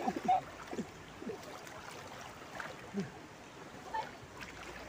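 Shallow river water swishing and splashing around the legs of someone wading across, with a couple of small splashes later on.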